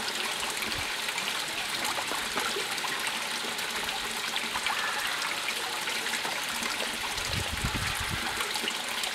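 Steady trickling, running water, with a brief low rumble about seven seconds in.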